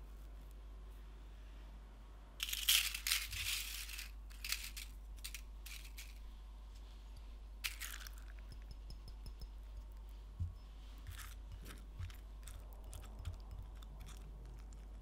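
Dry crinkling and tearing as brittle sheets are handled, loudest in a burst of about a second and a half and then in a few short crackles. After that, cold water trickles from a small ceramic jug into a glass bowl of gelatin sheets, with light clicks and taps against the glass.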